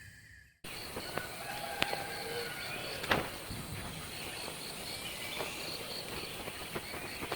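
Forest ambience cutting in about half a second in after a brief fade: insects trilling in an even pulse, with a few short calls and occasional sharp clicks.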